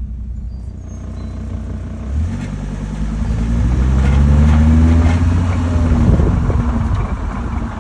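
Car moving and picking up speed, its low running note rising in pitch, with a fainter whine that rises along with it: the weird noise heard from the car's front end.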